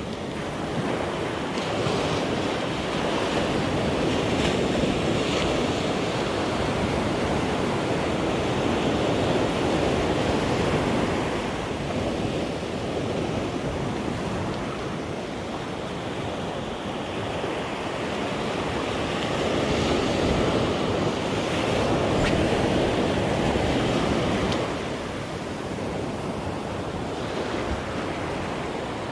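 Sea waves washing onto the shore, a steady rush that slowly swells and eases, with some wind on the microphone.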